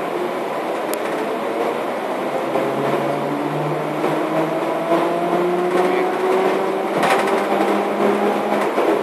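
Ride noise inside a Škoda 14Tr17/6M trolleybus, its electric traction drive whining and rising slowly in pitch as the trolleybus gathers speed, with one sharp knock about seven seconds in.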